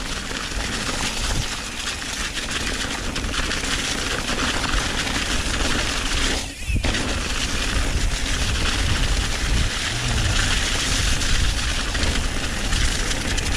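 Mountain bike riding over a leaf-covered dirt trail: the tyres crunch and crackle through dry fallen leaves, with a steady rush of wind over the helmet camera. The noise dips briefly about halfway through.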